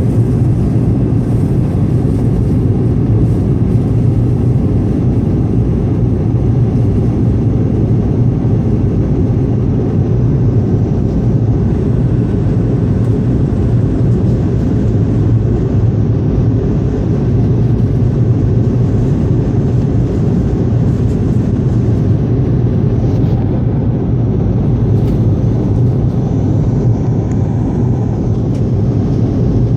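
Steady in-flight cabin noise of an Airbus A220-300, heard from a passenger seat: an even, deep rush of airflow and engine hum from its Pratt & Whitney PW1500G geared turbofans, unchanging throughout.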